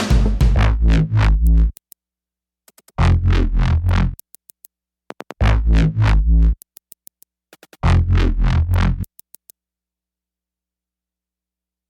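Electronic music with heavy synthesizer bass, played in four short stuttering bursts with brief gaps between them, then stopping about nine seconds in.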